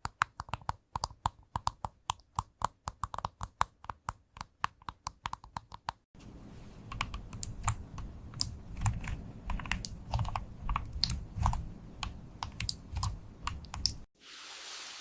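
AI-generated computer-keyboard typing: rapid, irregular key clicks, several a second. About six seconds in, the sound changes to louder, heavier keystrokes over a low rumble. Near the end it gives way to a brief hiss.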